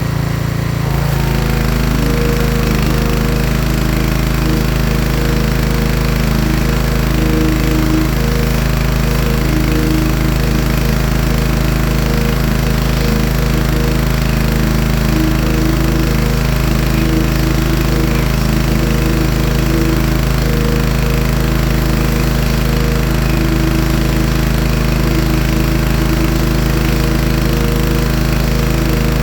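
Pressure washer's small engine running loud and steady. Its note shifts about a second in and then holds.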